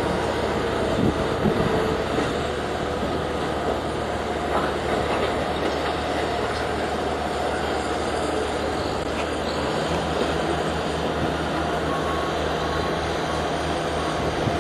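Compact utility tractor engine running steadily, its low note shifting about ten seconds in. A faint repeated beeping joins in the last few seconds.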